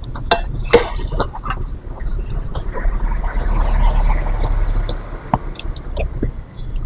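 Close-up mouth sounds of someone eating lontong kikil: wet chewing of the chewy beef hide. There are a few sharp clicks in the first second or so.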